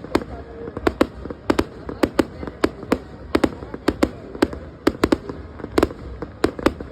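Fireworks going off in a rapid, irregular barrage of sharp bangs, several a second, over a low background rumble.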